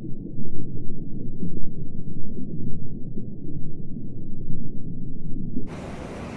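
Muffled, low rumbling underwater ambience that swells and ebbs; near the end it cuts suddenly to the steady hiss of ocean surf.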